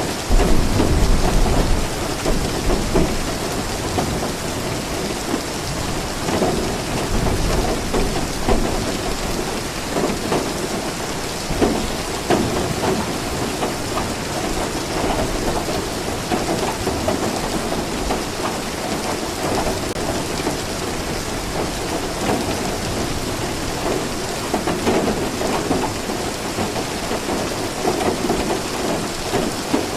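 Steady rain falling. A deep low rumble swells through the first couple of seconds.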